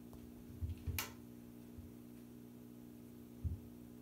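A cat's paws thumping softly on the floor of an acrylic bathtub as it spins after its own tail: a few low thumps, two close together within the first second and one near the end, with a sharp click about a second in. A steady low hum runs underneath.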